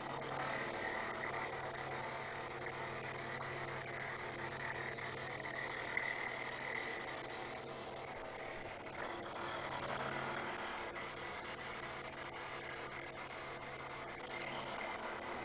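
Bridgeport milling machine spindle running at a raised speed while an end mill cuts the end of a 6061 aluminum bracket: a steady hum with a higher cutting tone above it. The low hum drops away near the end.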